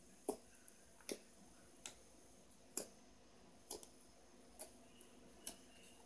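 Slime being poked and pressed with the fingertips, making small sharp pops as trapped air bursts: about eight pops, spaced irregularly, roughly one a second.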